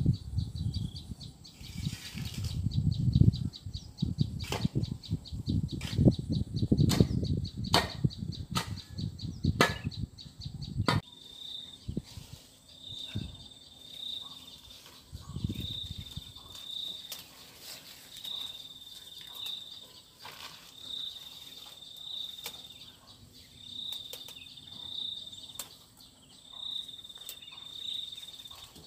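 Gusting wind rumbling on the microphone, with scattered sharp knocks, for about the first eleven seconds. After that it is quieter, with a short high call repeating about every second and a half.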